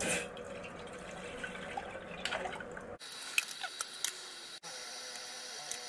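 A kettle of water heating on a small camping stove, coming to the boil: a steady hiss with faint bubbling and scattered ticks. About three seconds in the sound changes abruptly to a thinner, higher hiss with more ticks.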